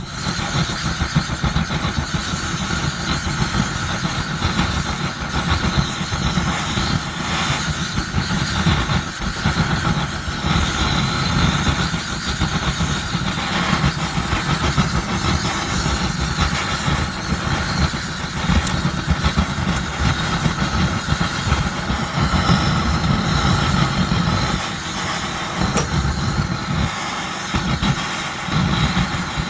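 Swiss army petrol vaporising stove's pressurised burner running at full flame after preheating, a steady rushing noise with a low rumble that starts abruptly.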